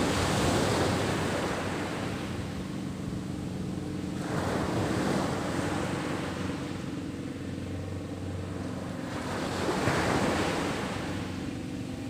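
Sea surf breaking on the shore, the rushing swelling up three times about five seconds apart, with a faint steady low hum underneath.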